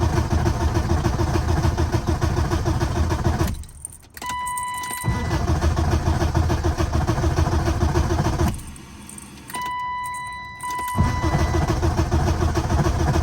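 BMW E36 318i four-cylinder engine cranking on the starter without catching, in three spells of a few seconds each: a crank-no-start that the owner suspects comes from its ECU after cleaning it. Between the cranking spells a steady electronic beep sounds.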